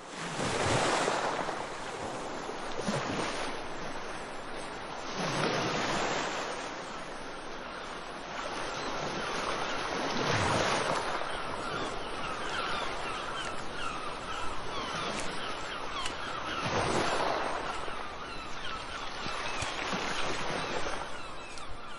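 Sea waves washing onto the shore, a surge every few seconds over a steady rush of surf. From about the middle, faint short calls of seagulls come in over the waves.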